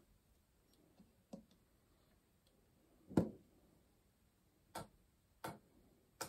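Accuphase E-480 integrated amplifier's front-panel selector knob being turned by hand: a series of six short clicks at uneven intervals, the loudest about three seconds in.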